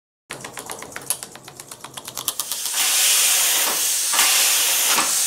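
Homemade compressed-air engine running up to speed, its air exhaust puffing faster and faster until, about two and a half seconds in, the puffs merge into a loud continuous hiss.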